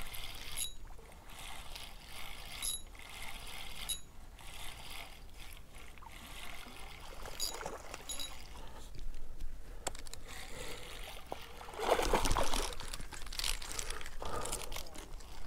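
Spinning reel being wound to bring in a hooked trout, a whirring crank with sharp clicks, while the fish splashes at the surface. There is a louder stretch of noise about twelve seconds in.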